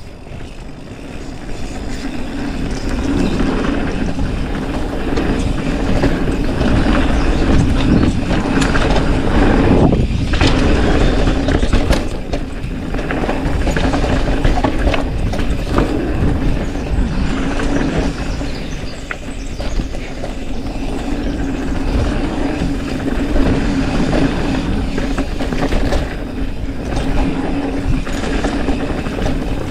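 Mountain bike riding fast down a dirt trail: tyres rolling over the ground and the bike rattling over bumps, with wind buffeting the chin-mounted helmet camera. A steady drone runs under it, with sharp clatters here and there.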